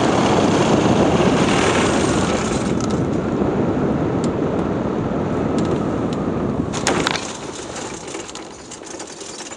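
Sound from on board a model aircraft: steady rushing noise of the propeller and airflow. A short cluster of knocks comes about seven seconds in as it touches down on the grass, and then it goes quieter.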